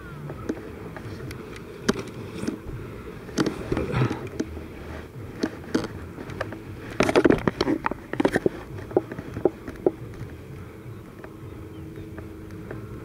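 Distant paramotor engines droning steadily overhead, a thin buzzing hum. Knocks and rustles close to the microphone come and go, loudest about seven to eight seconds in.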